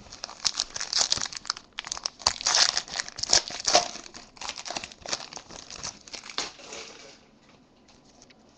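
Foil wrapper of a Panini Select football card pack being torn open and crinkled by hand: irregular crackling rustle that stops about seven seconds in.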